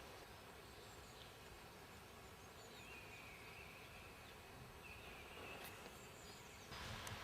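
Near silence: faint countryside ambience with a few thin, high bird calls a little before halfway and again about two-thirds in, and a rise of hiss near the end.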